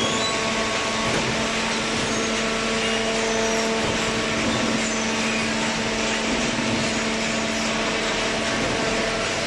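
Hydraulic carton baler running: its motor and hydraulic pump give a steady hum over a constant hiss.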